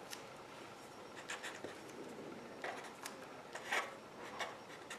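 Black felt-tip marker drawing on a white sheet: a faint series of short scratchy strokes as lines and letters are written.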